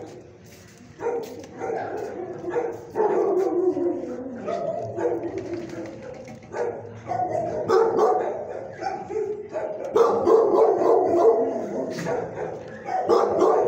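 Dogs barking and yelping in a shelter kennel block, the calls overlapping without a break and getting louder from about ten seconds in.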